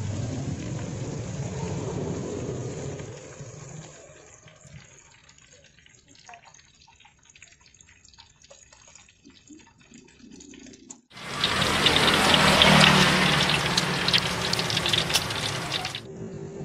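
Hot cooking oil sizzling in a wok as skewered egg fries, fading after a few seconds to quieter clinks. About eleven seconds in, a much louder hiss full of crackles starts abruptly and cuts off about five seconds later.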